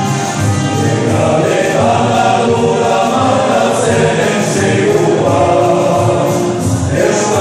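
Dance music with a group of voices singing over a steady beat.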